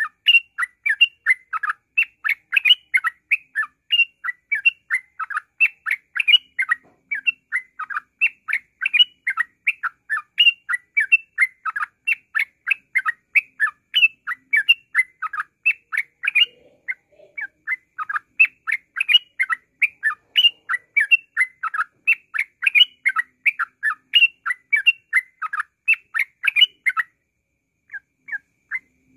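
Yellow-vented bulbul (trucukan) singing in a fast, unbroken string of short chattering notes, about three or four a second, with a brief pause near the end.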